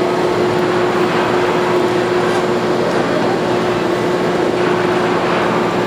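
Screw press running steadily, squeezing liquid out of fibrous pulp as the pressed cake is pushed out past its restraining ring: an even machine noise with a constant hum.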